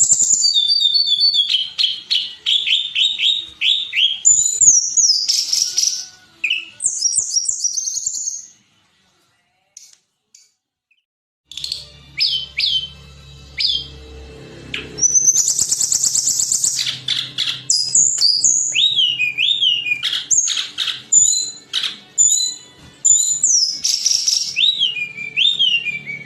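Tledekan gunung singing: rapid phrases of high, sliding whistled notes and trills. A silence of about three seconds falls in the middle, and after it a low hum runs under the song.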